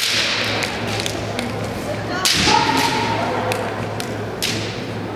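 Kendo bout: bamboo shinai clacking and tapping against each other, with loud shouted kiai from the fencers, one about halfway through, over a steady low hum.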